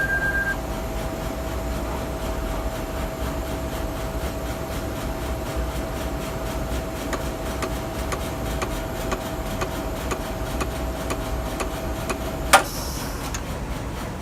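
Motorized Z-stage running with a steady whine and regular faint ticking in the second half, over a steady mechanical hum. A single loud click comes near the end, and the whine stops with it.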